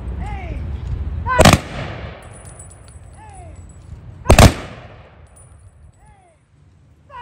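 Honor guard rifle team firing the volleys of a funeral rifle salute: sharp, loud volleys about three seconds apart, each ringing out and fading.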